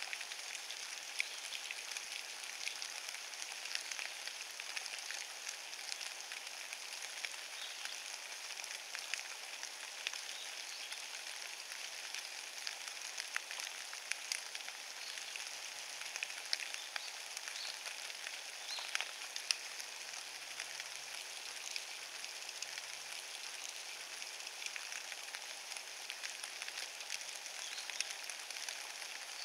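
Steady rain falling on fallen leaves: an even hiss with many small, irregular drop ticks throughout.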